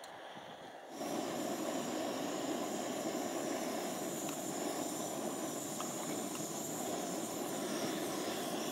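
MSR canister gas stove burner running under a pot of water, a steady hiss that starts suddenly about a second in and cuts off at the very end.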